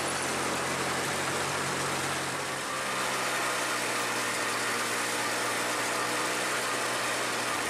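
Motorcycle under way on a gravel road: a steady low engine note under a constant rush of wind and road noise. The engine note drops slightly between about one and three seconds in.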